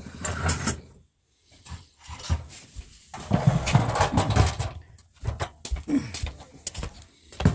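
Irregular knocks, clatter and rustling of parts and wiring being handled, busiest about halfway through.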